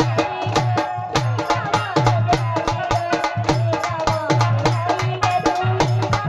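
Music with a fast, steady percussion beat of sharp strikes over a pulsing low drum, with a melody line above.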